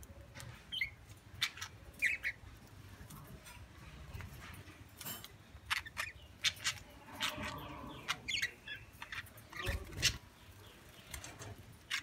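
Budgerigars bathing in a shallow steel water bowl: scattered splashes and quick wing flutters, with a few short chirps early on.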